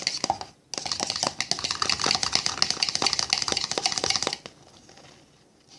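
A fork stirring quickly in a cup of olive oil and food coloring, a fast run of small scraping clicks against the container. It breaks off for a moment just after the start and stops about four and a half seconds in.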